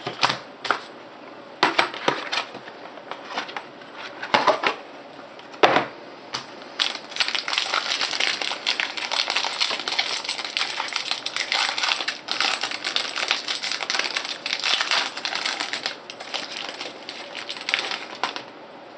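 A foil trading-card pack being opened by hand: a few scattered clicks and crinkles, then about ten seconds of near-continuous crinkling and crackling of the wrapper as the cards are handled.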